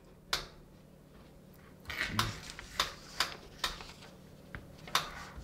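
About eight light, sharp clicks and taps at irregular intervals from the plastic controls and housing of a T-fal deep fryer being handled.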